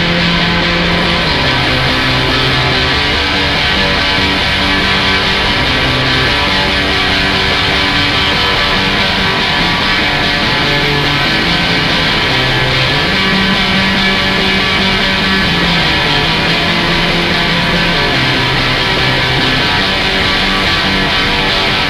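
Guitar-driven rock music, with no vocals, playing steadily.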